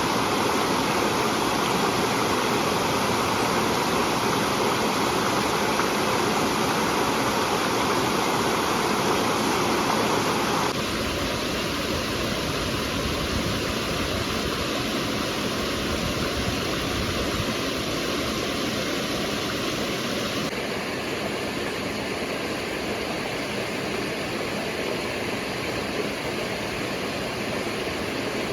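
River water rushing steadily over rocks. The sound shifts abruptly twice, about a third and two-thirds of the way through, as if from one stretch of the river to another.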